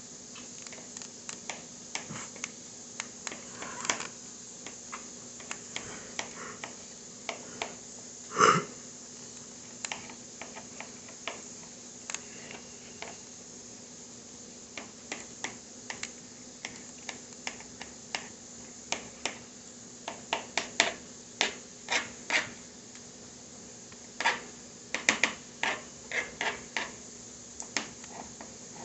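Kitchen knife chopping on a cutting board: irregular sharp taps, one louder knock about eight seconds in, and quicker runs of chops near the end.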